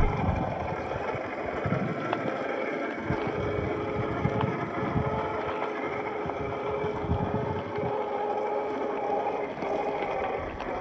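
Electric motor and geared drivetrain of a 1/10 scale RC rock crawler whining steadily as it drives, with scattered crunches and knocks from the tyres and chassis working over dirt and rocks.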